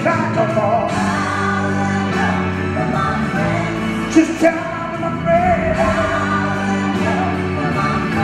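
Man singing a song live into a microphone over backing music, with long held bass notes beneath the melody.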